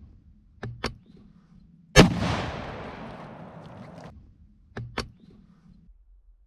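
A single blast from a Rock Island Armory 12-gauge pump shotgun about two seconds in, its echo fading away over about two seconds. There are two quick clicks before the shot and two more after it.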